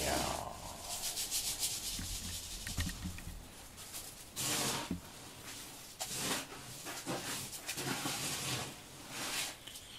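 A hand stroking a cat's head and fur close to the microphone: soft rubbing swishes that come and go irregularly.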